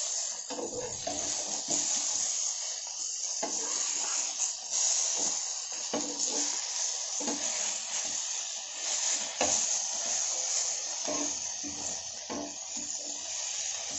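Masala-coated tilapia (jalebi fish) frying in oil on a flat griddle with a steady sizzle. A metal spatula scrapes and clicks against the pan many times as the fish are turned over.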